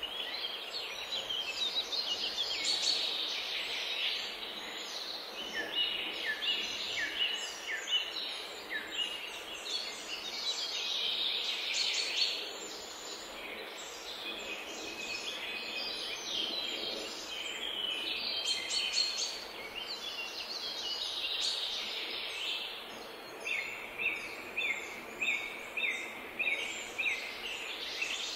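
Several songbirds singing at once, a dense chorus of short high chirps and trills over steady background hiss. Near the end one bird repeats the same short note about twice a second.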